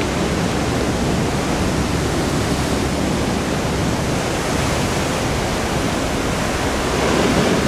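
Steady, loud rushing of ocean surf breaking along the shore.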